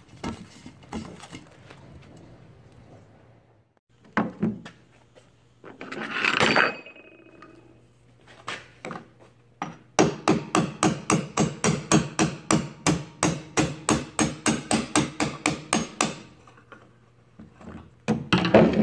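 Small hammer lightly tapping a punch to drive the pin out of a Minn Kota Rip Tide trolling motor's tilt-latch bracket. A few scattered knocks come first, then a quick, even run of taps, about six a second for some six seconds, and a few more near the end.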